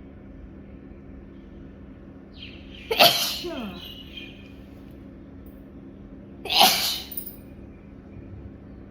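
Two sharp sneezes about three and a half seconds apart, the first a little longer and trailing off.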